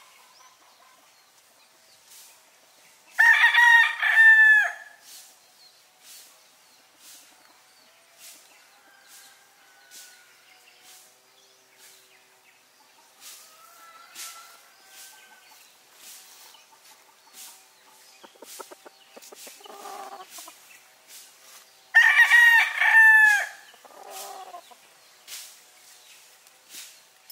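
Gamecock rooster crowing twice, once about three seconds in and again about twenty-two seconds in, each crow lasting a second or two.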